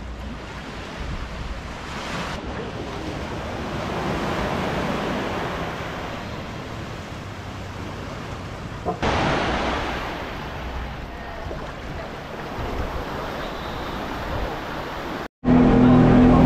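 Gentle surf washing onto a sandy beach, a steady hiss of water with some wind on the microphone, swelling a little twice. It breaks off near the end into music.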